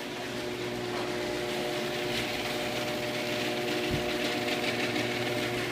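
Genie screw drive garage door opener running, its motor and screw rail carrying the door in a loud, steady mechanical hum with a steady whine on top. A single brief knock about four seconds in.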